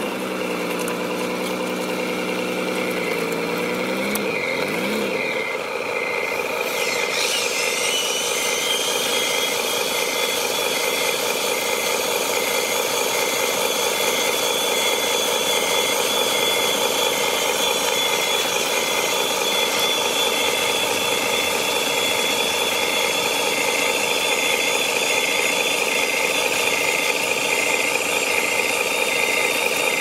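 Radio-controlled dump truck running with its simulated diesel engine idling steadily, joined about seven seconds in by a high electric whine that rises and then holds steady as the tipper body lifts its load of gravel.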